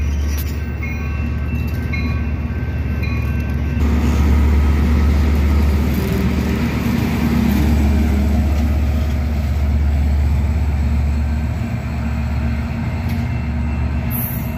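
F59PHI diesel-electric passenger locomotive running close by, its EMD diesel engine giving a loud, steady deep rumble along with the noise of the moving train.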